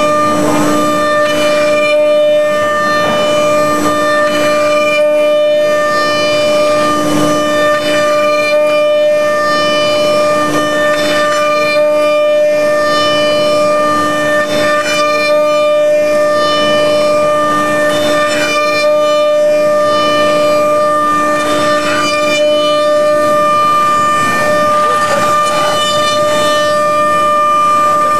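CNC router spindle (5-horsepower HSD automatic-tool-change spindle) running at a steady high whine during the finish cut on an orthotic blank, with a noisy rush of cutting beneath it.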